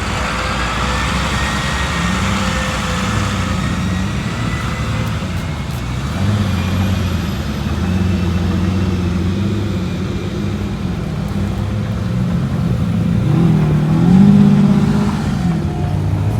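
A car engine running at a rumbling idle, its pitch wavering slightly, then revving briefly about thirteen seconds in before settling back.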